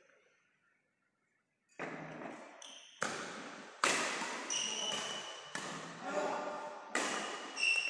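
Badminton rally: after nearly two seconds of silence, a racket strikes the shuttlecock about six times, each hit a sharp crack that rings out in the large hall. Shoes squeak briefly on the court twice.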